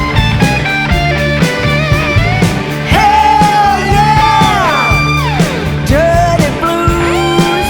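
Blues-rock band playing, with a steady drum beat under a wailing lead line that slides down in pitch about five seconds in.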